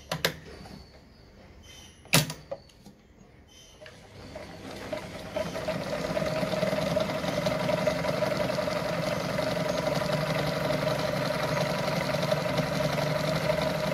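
Brother Pacesetter Super Deluxe sewing machine stitching a decorative pattern through denim. Two sharp clicks come near the start, then the motor starts about four seconds in, speeds up and runs at a steady speed with a steady hum.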